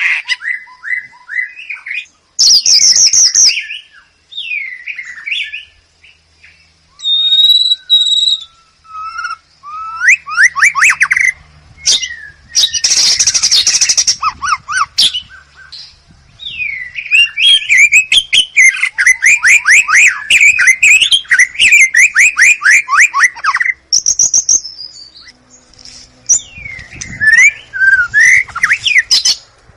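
White-rumped shama (murai batu) singing a varied song: gliding whistles, long runs of rapid repeated trill notes and several harsh rasping bursts, with short pauses between phrases.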